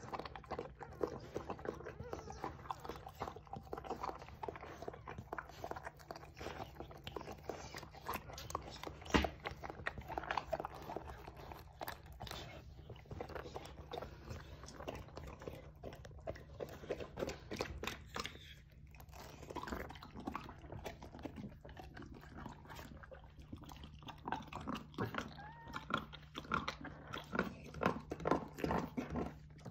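English springer spaniel mother licking and chewing at a newborn puppy and its birth sac: a rapid run of wet smacking, lapping and chewing sounds.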